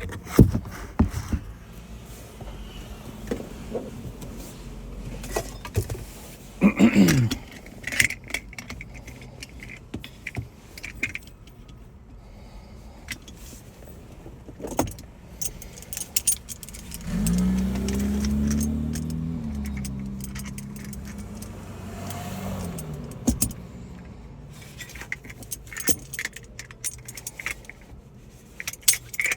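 Small metal tools and parts clicking and clinking against each other and a work surface, in many short sharp ticks. A small motor whirs steadily for about six seconds midway and winds down at the end.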